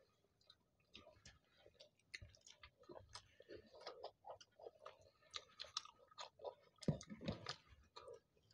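Faint close-up chewing and wet mouth smacking of people eating koraishutir kochuri (pea-stuffed fried bread) with aloo dum, a quick run of small clicks and smacks that is loudest about seven seconds in.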